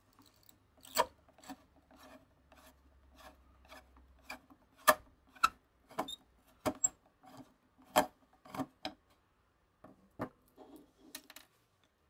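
Flat-blade screwdriver turning a screw out of a black plastic knob, the blade scraping and grating in the slot, with a string of irregular sharp clicks; the loudest comes about five seconds in.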